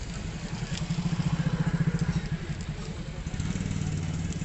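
Royal Enfield Bullet's single-cylinder engine running at a standstill, its steady low pulse getting louder for about a second, a second or so in, then settling back.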